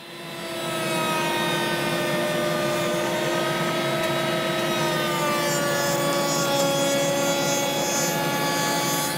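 Table-mounted router running at full speed while a wooden door-frame rail is fed along the fence past the bit, cutting the groove. It makes a steady high whine over a cutting noise, and the pitch sags slightly around the middle.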